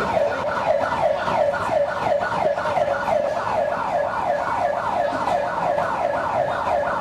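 Emergency vehicle siren sounding at a fast yelp, a falling tone repeated about three times a second.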